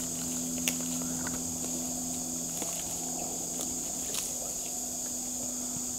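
Steady high-pitched insect chorus droning through the woodland, with a few light footsteps, rustles and twig snaps in the undergrowth, and a faint low hum underneath.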